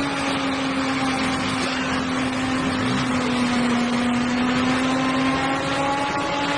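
A motor vehicle's engine running hard and steadily, a sustained whine whose pitch sags slightly around the middle and comes back up, over heavy mechanical noise.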